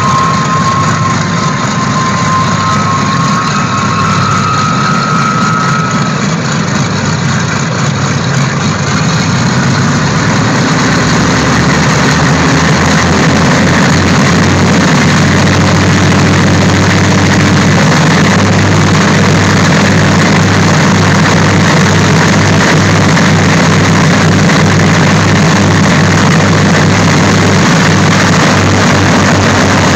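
The Boeing B-29 Superfortress's Wright R-3350 radial engines running with propellers turning, a loud, steady, throbbing drone. It grows louder about ten seconds in and holds there. A thin whine rises slightly in pitch over the first few seconds.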